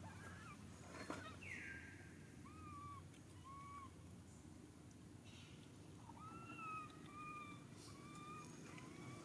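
Faint birds calling: a run of short rising-and-falling chirps, one to two a second, some on a higher note. About a second and a half in comes one broader downward squeak.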